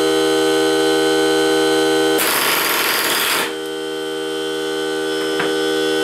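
Ryobi 18V cordless oilless air compressor running steadily as it refills its tank after a nail drive. About two seconds in, compressed air hisses for just over a second, and a small click follows near the end.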